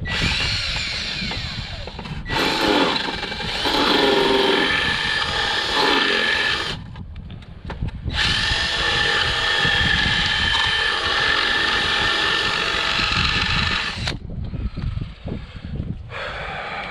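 Cordless drill running in two long bursts, drilling into the underside of the boat lift's plastic (fiberglass-like) control box enclosure. The first run changes pitch several times as the bit works. After a pause of about a second and a half, the second run is steadier and lasts about six seconds.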